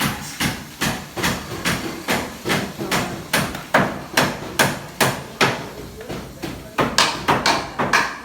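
Repeated hammer blows, about two to three a second in a steady rhythm, coming a little quicker near the end: construction hammering.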